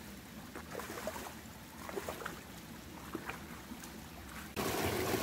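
Faint running water of a small river with scattered light ticks, then, about four and a half seconds in, an abrupt switch to a much louder, steady rush of water.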